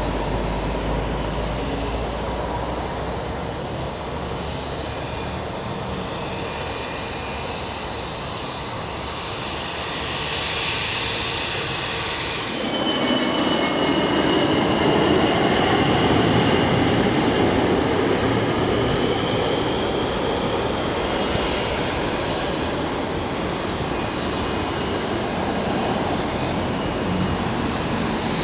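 Jet airliners on approach to land. First comes the steady rush and whine of an Airbus A320-family jet's engines. After an abrupt cut about twelve seconds in, a Boeing 767-300ER's engines are louder, with a broad rush and a high whine that slowly falls in pitch.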